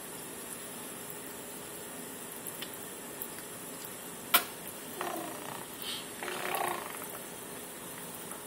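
Kitchen faucet water running steadily into a stainless-steel sink. A sharp click comes about four seconds in, and a couple of brief high-pitched vocal sounds follow around five and six seconds.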